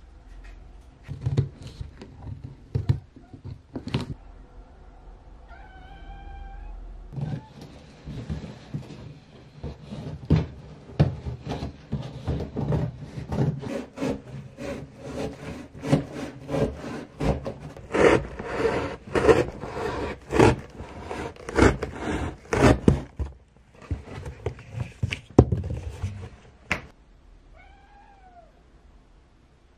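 A cat meows twice, once about six seconds in and once near the end. Between the meows, cardboard and paper are being handled, rustling, scraping and knocking, busiest in the middle.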